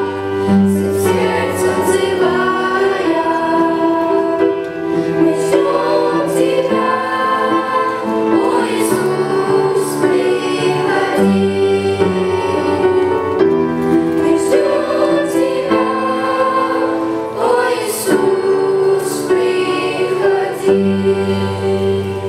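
Children's choir singing a Russian-language worship song in unison over instrumental accompaniment with steady sustained low notes.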